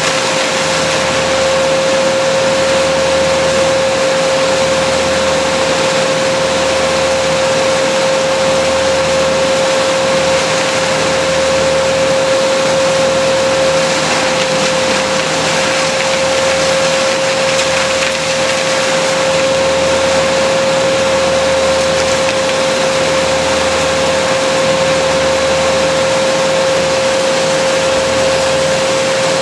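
Small petrol-engine power tool running steadily at full throttle the whole time, with a constant high whine over a loud rushing hiss.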